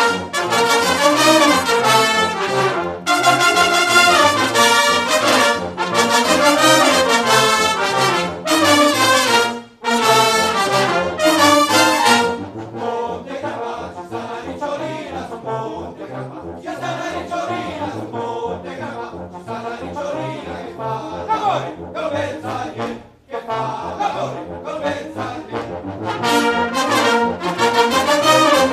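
Bersaglieri fanfare brass band, a massed section of valved bugles and trumpets, playing on stage. Loud full-band phrases with brief breaks between them give way about twelve seconds in to a softer passage. The full band comes back in near the end.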